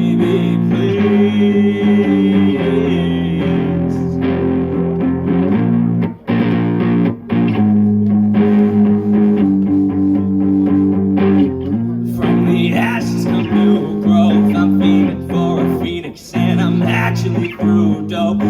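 Drumless punk song on guitar: sustained chords changing every second or two with no drum beat, broken by brief stops about six, seven and sixteen seconds in.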